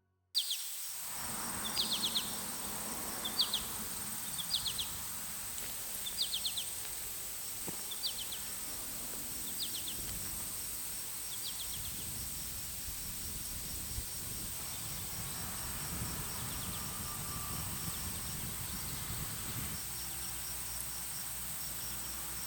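Outdoor ambience: a bird repeats a short chirping call about once a second for the first twelve seconds or so, then falls silent, over a steady high thin tone and a low background rush.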